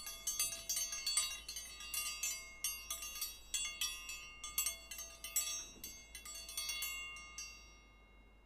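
A cascade of high, ringing chime strikes, densely overlapping, thinning out and fading away after about seven seconds.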